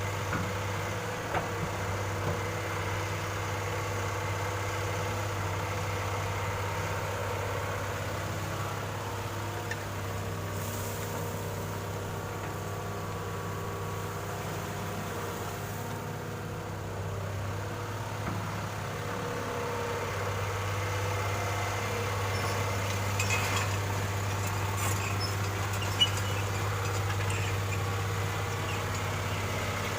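Excavator's diesel engine running steadily with an even low hum, with a few short sharp knocks, the loudest about 26 seconds in.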